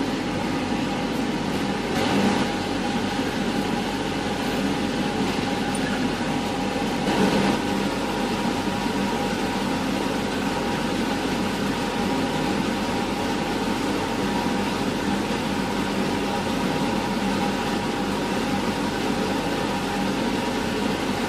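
A steady mechanical hum with a few faint steady tones running through it.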